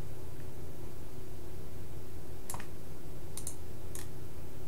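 A few sharp clicks of a computer mouse, starting about halfway through, over a steady low hum.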